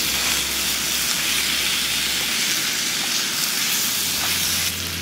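Beef strips and vegetables sizzling steadily as they fry in a pan over a gas burner, with the burner's hiss underneath, while a spoon stirs them.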